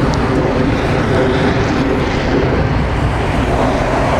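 Harley-Davidson Twin Cam 96 V-twin idling steadily through a Vance & Hines exhaust, a continuous low drone.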